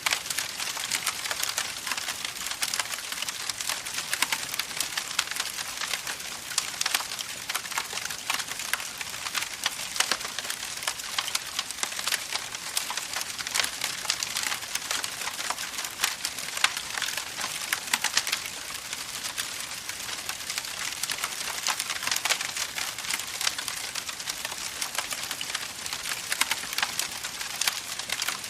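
Campfire crackling: dense, irregular small pops and snaps over a steady hiss.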